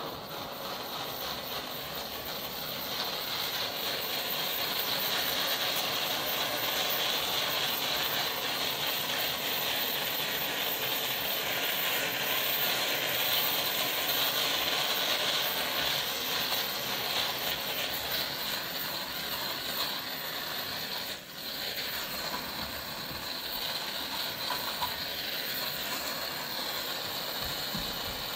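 Handheld gas-cartridge blowtorch burning with a steady hiss as its flame is swept over a car's plastic bumper, with one brief drop in the sound about three-quarters of the way through.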